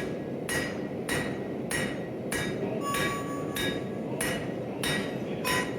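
Blacksmith's hand hammer striking hot steel on an anvil in a steady rhythm, about nine blows, each leaving a short metallic ring, over a steady low rushing noise.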